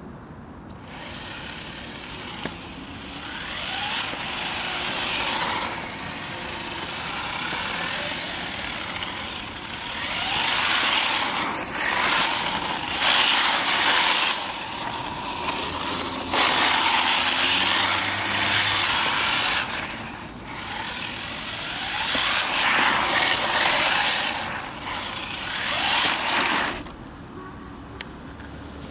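1/10-scale RC touring car driving on rough asphalt: a hiss of tyres and a motor whine that swell several times as the car runs close by, with a few brief rising whines as it speeds up.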